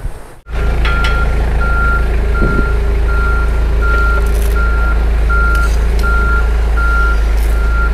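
Forklift reversing with its backup alarm beeping evenly, about one and a half beeps a second, over the steady low running of its engine. It starts about half a second in, after a brief dropout.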